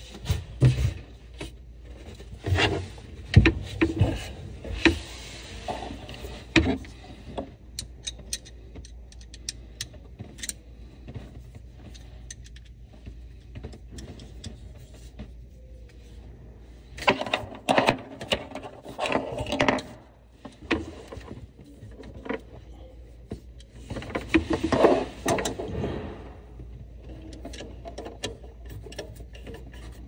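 Faucet supply hoses and fittings handled under a kitchen sink: bursts of clicking, rattling and rubbing, with scattered single clicks in between.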